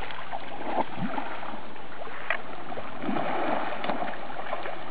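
Baby Asian elephants splashing and churning river water as they roll and thrash while bathing: a steady wash of sloshing water, busiest about three seconds in, with a few short sharp splashes.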